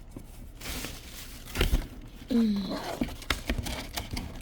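Packaging crinkling and tearing as a carpet shampooer is unboxed, with several sharp knocks of parts being handled, the loudest about a second and a half in.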